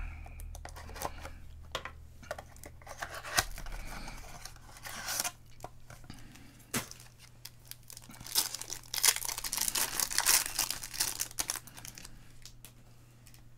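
Wrapper of a baseball card pack tearing and crinkling as it is opened by hand, with cards clicking and sliding against each other. The crinkling comes in spells and is heaviest from about eight to eleven seconds in.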